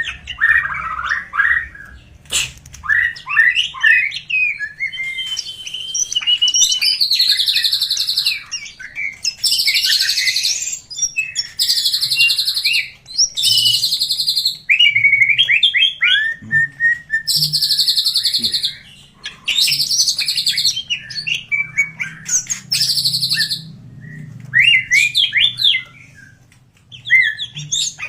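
Green leafbird (cucak hijau) singing a varied, high-pitched song. Quick sweeping chirps and trills alternate with repeated harsh, buzzy phrases about a second long, with only brief pauses.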